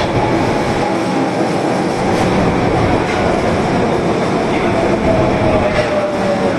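Osaka Metro Tanimachi Line 22 series subway train running: a steady rumble of wheels and motors, with a faint whine that drops slightly in pitch near the end.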